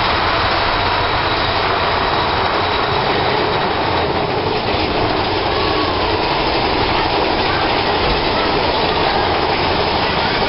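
Big Thunder Mountain Railroad mine-train roller coaster running on its track, heard from on board: a steady, unbroken rumble of wheels on rail.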